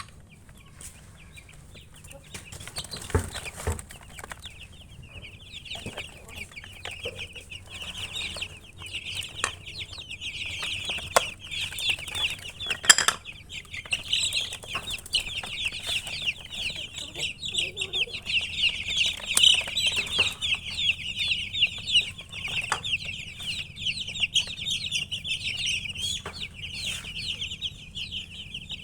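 A brood of baby chicks peeping, a dense run of rapid high cheeps that starts a few seconds in, with a few sharp knocks among them.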